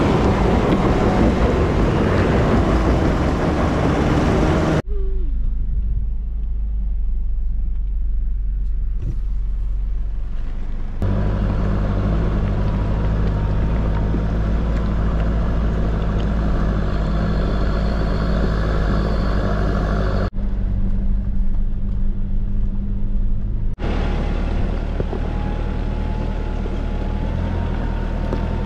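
Nissan Pathfinder R51's engine running at low, steady revs as the SUV crawls off-road. The sound changes abruptly several times between stretches. A faint steady whine is heard in the later stretches.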